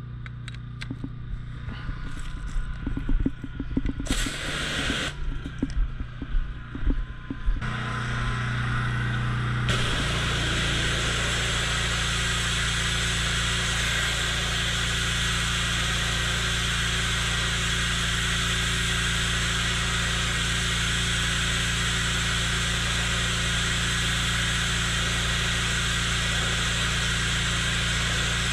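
Metal clinks and knocks as a nozzle fitting is handled and clicked onto a pressure washer lance. A low hum starts shortly before the pressure washer begins spraying about ten seconds in. From then on the high-pressure jet on sandstone paving makes a loud, steady hiss over that hum.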